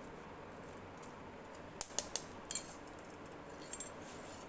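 A steel spoon and stainless-steel mesh strainer clinking against a steel pot while jamun pulp is strained: a quick cluster of sharp metal clinks a little under two seconds in, two more shortly after, and a few fainter ones near the end.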